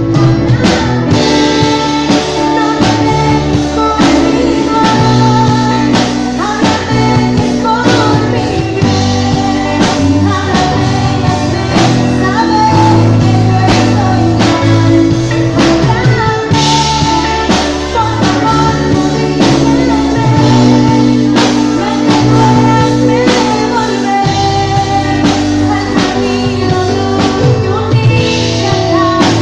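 Loud music with singing, a bass line and a steady beat.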